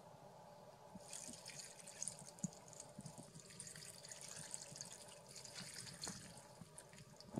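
Chicken stock poured over sausage slices and chopped cabbage in a casserole dish: a faint liquid trickle and splatter that starts about a second in and tapers off near the end.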